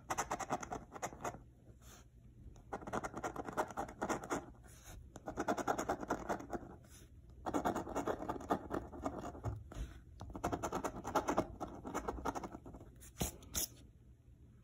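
A coin scratching the coating off a scratch-off lottery ticket, in five bouts of a second or two each with short pauses between, one for each number uncovered; a few light clicks near the end.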